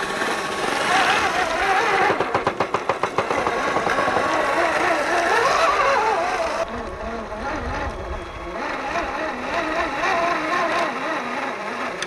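Electric motor and gearbox of a scale RC 4x4 truck whining, the pitch rising and falling with the throttle as its tyres churn through thick mud. About two seconds in there is a short run of rapid pulsing.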